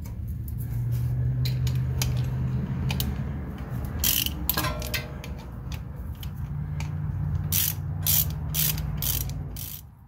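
Socket ratchet clicking in short runs as it backs out the brake caliper bolt, over a steady low hum. The clicks are loudest about four seconds in and in several strong strokes over the last two and a half seconds.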